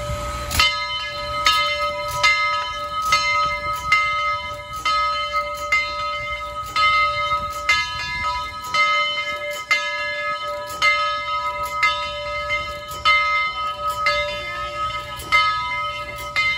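Steam locomotive bell on Southern 4501, rung steadily as the engine moves off: a clear, ringing strike a little more than once a second.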